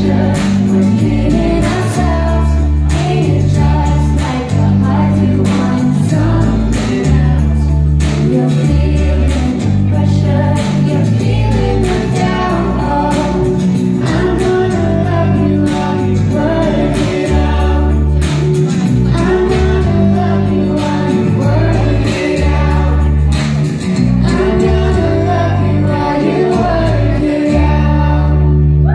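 Amplified band music with singing over a heavy, pulsing bass line and drums, played loud through a PA.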